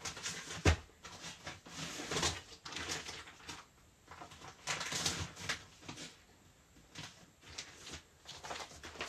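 Rustling and scattered soft knocks of someone rummaging through plastic-packed clothes, with one sharper thump less than a second in.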